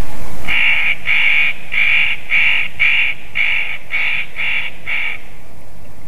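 Spotted nutcracker giving a series of about nine harsh, rasping calls, roughly two a second, that stop about five seconds in.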